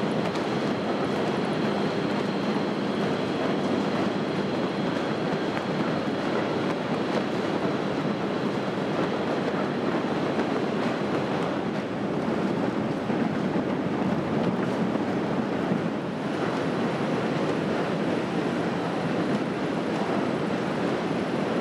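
Potatoes tumbling through a Skals fall damper, its rubber-lined chutes easing them down into a big bag, with the machine running: a steady, dense rumble of many small knocks. A faint high whine runs under it and fades about halfway through.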